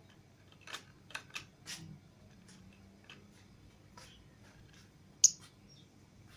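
Lovebirds making scattered short clicks and brief chirps, with one sharp, louder high-pitched chirp about five seconds in.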